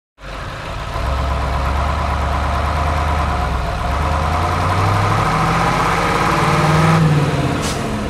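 An engine running steadily, its pitch climbing over the middle seconds as it revs.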